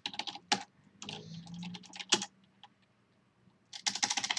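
Typing on a computer keyboard: separate bursts of keystrokes, with a quick run of keys near the end.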